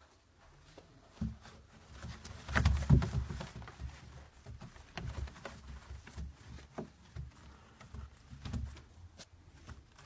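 Domestic pigeons cooing: repeated low coos, the loudest about three seconds in, from a male displaying with its tail fanned. Scattered light clicks and shuffles come with them.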